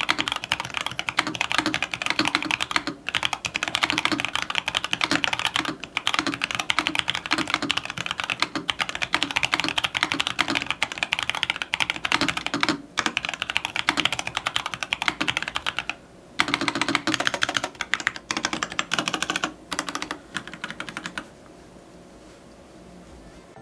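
Fast, continuous typing on a Feker IK75 V3 mechanical keyboard fitted with Akko Jelly Blue tactile switches and thick PBT keycaps, with a few brief pauses. The typing stops near the end.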